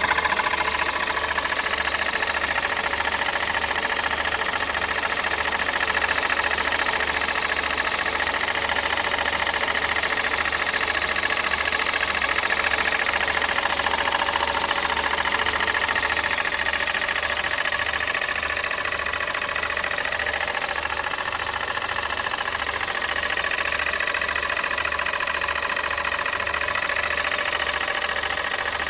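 Volkswagen 1.4 TSI (CAXA) petrol engine running steadily with an unfamiliar knock mixed with rubbing and grinding, at 125,000 km on its original factory timing chain.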